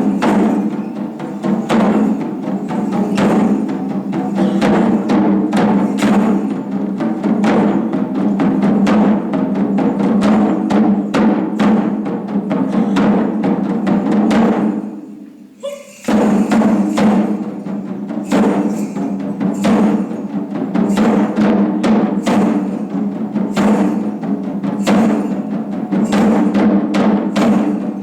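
Taiko drums played in ensemble: a dense, continuous run of strikes, dropping away briefly about halfway through before the drumming starts up again.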